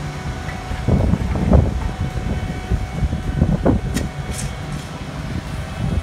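Caterpillar asphalt paver running steadily with its diesel engine, a continuous low mechanical rumble that surges irregularly.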